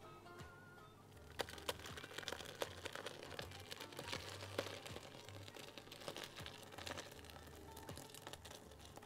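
Soft background music, with faint irregular wet crackling and spattering from about a second in as fresh cheese curds and whey pour from a pot into a cheesecloth-lined strainer.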